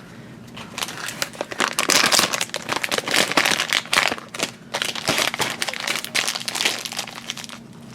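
Plastic blind-bag packet crinkling and crackling as it is handled and torn open, in a run of irregular rustles.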